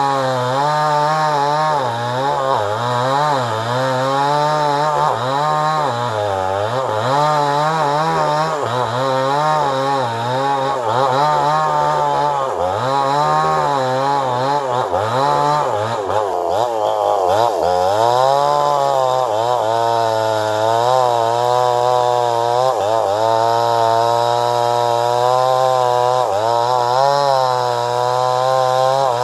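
Stihl two-stroke chainsaw running at high speed while cutting wood, its engine pitch repeatedly sagging and recovering as the chain loads up in the cut. About two-thirds of the way in the pitch drops sharply, then holds steadier and higher.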